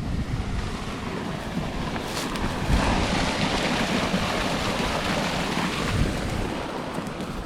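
Water rushing through a culvert tube that a beaver had plugged, freshly opened up by hand: a steady roar that grows a little louder about three seconds in.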